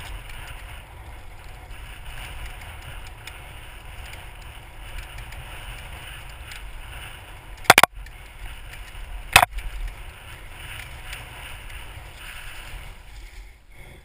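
Wind rushing over a helmet-mounted camera's microphone during a trail ride, with a steady low rumble and rattle from the rough trail, and two sharp, loud knocks about eight and nine and a half seconds in.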